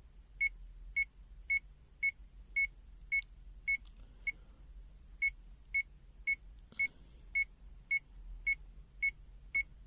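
ZOYI ZT-Y2 digital multimeter beeping in NCV (non-contact voltage) mode: short high-pitched beeps about two a second, one skipped near the middle, showing it is sensing a nearby AC voltage.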